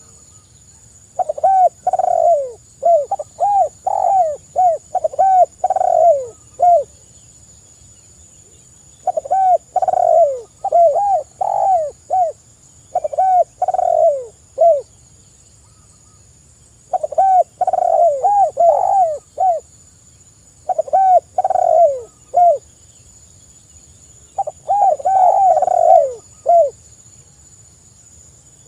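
Spotted dove cooing in five bouts of several quick coos each, the bouts separated by pauses of one to three seconds.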